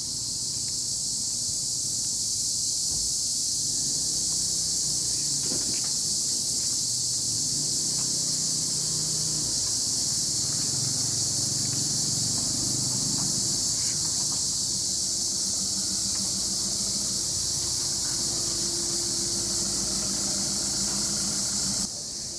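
Loud, steady, high-pitched buzzing chorus of daytime insects, which cuts off suddenly shortly before the end. A low hum with a few steady tones runs beneath it.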